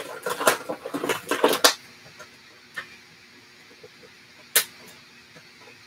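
Handling noise from things being moved about on a tabletop: a quick cluster of rustles and clicks for under two seconds, then a few single sharp clicks, the loudest about two-thirds of the way in.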